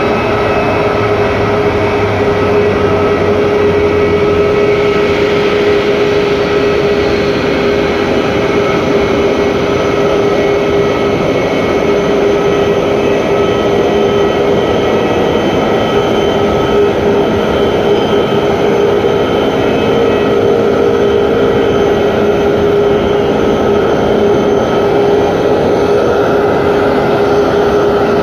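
Steady, loud running noise of a vehicle with a constant whine over it, unchanging throughout.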